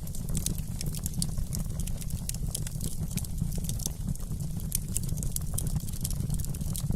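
Wood fire crackling, with many small irregular pops over a steady low rumble.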